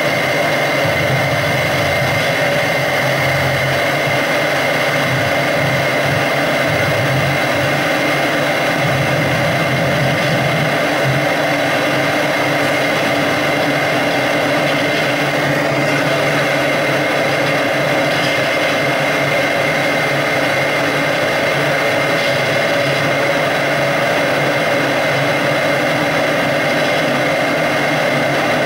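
Live electronic soundscape played from a laptop: a dense, steady drone of noise with several held tones, unbroken throughout. A low, flickering rumble sits under it for the first ten seconds or so, then thins out.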